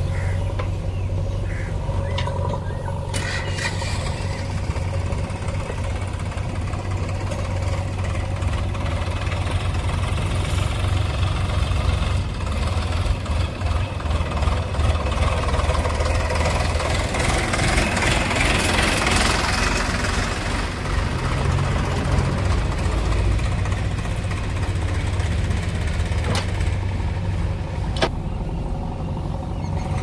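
Diesel engines of a JCB 3DX backhoe loader and a Sonalika tractor running under load as soil is loaded, a steady low drone that grows louder and rougher for a few seconds past the middle. A few sharp knocks stand out.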